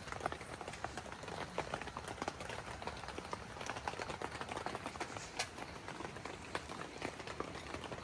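Rain falling on a tent: many small drops ticking irregularly over a steady hiss, with a few louder drips.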